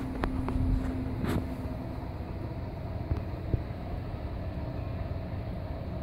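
Steady low hum and rumble of a running aquarium pump, with a few sharp clicks in the first second and a half.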